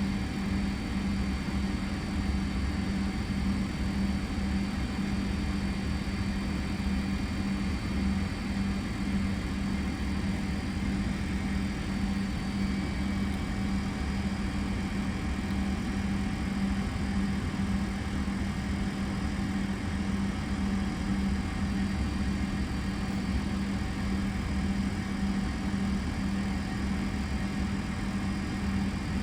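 Steady cockpit drone of a Fokker 100 holding on the runway with its Rolls-Royce Tay turbofans at idle, a constant low hum with faint high whines above it.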